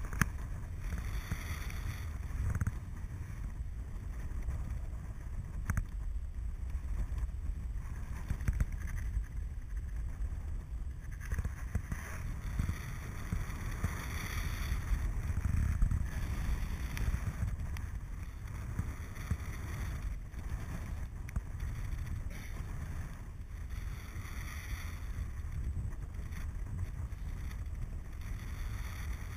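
Wind noise from the airflow over a paraglider pilot's camera microphone in flight: a steady low rush that swells and eases in uneven gusts.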